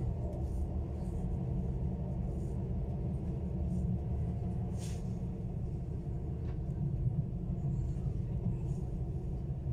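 ES1 (Stadler KISS) double-deck electric train running at speed, heard from inside the carriage: a steady low rumble of wheels and running gear, with a brief sharp click about five seconds in.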